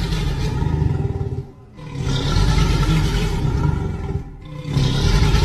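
Reconstructed Triceratops call sound effect: deep, rumbling roars, one ending about a second and a half in, a second lasting about two seconds, and a third starting near the end.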